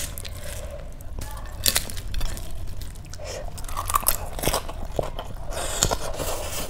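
Close-up crunching and chewing of a handful of rice mixed with crisp papad shards and raw onion, with crackling as fingers crush the papad into the rice.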